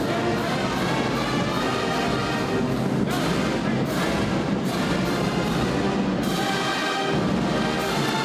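Brass-led band music with drums, playing steadily, with sharp accented strokes every second or so from about three seconds in.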